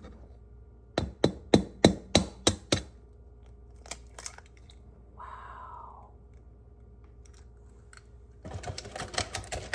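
An egg tapped sharply seven times against a hard edge to crack its shell, about three taps a second. Near the end comes a dense run of small crackles as the shell is broken open.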